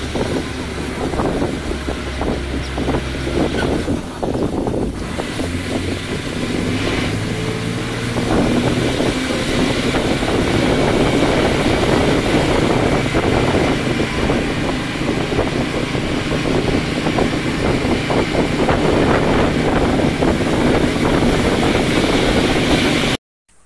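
Wind rushing over the microphone at the open window of a moving bus, with the bus's engine running low underneath and road noise. The sound cuts off abruptly near the end.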